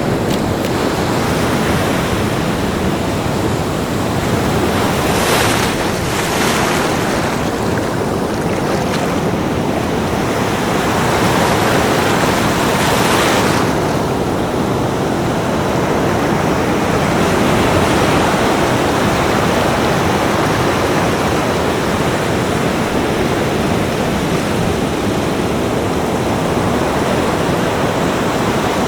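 Ocean surf on a beach: a steady rush of waves, with several brighter hissing surges in the first half as waves break and wash up.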